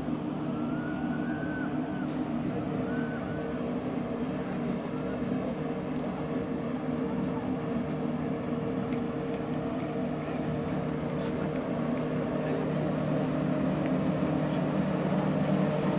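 Steady mechanical hum of a chairlift's drive machinery at its base station, growing louder near the end.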